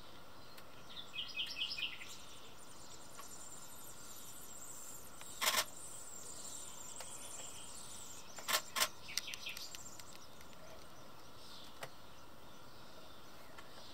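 Faint songbird calls over a steady background hiss. About a second in comes a quick run of short, high chirps. There are three sharp knocks, the loudest sounds: one about five and a half seconds in, and two close together about three seconds later.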